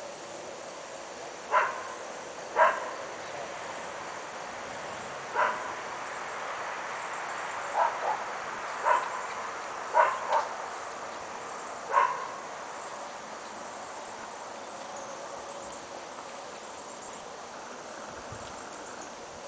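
A dog barking about nine times, singly and in quick pairs, over a steady background of insects; the barks stop about twelve seconds in.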